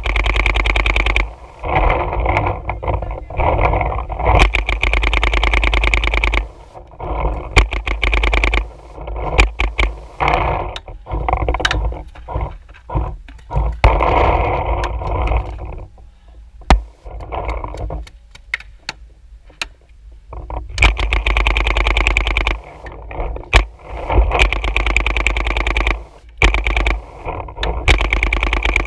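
Paintball marker firing rapid strings of shots, heard right at the barrel, in several bursts of a few seconds each with short pauses between.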